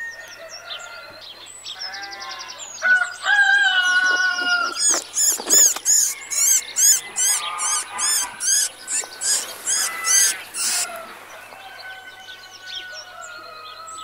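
Farmyard bird calls: chickens clucking and crowing-like calls, then a loud run of quick high chirps, about two a second, in the middle, fading to fainter calls near the end.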